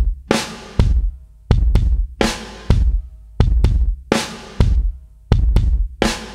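Background music with a steady drum-kit beat: heavy bass drum thumps with snare hits.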